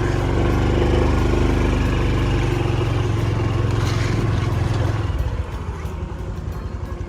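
An engine running steadily close by, louder for the first five seconds, then dropping back to a lower, steady running sound.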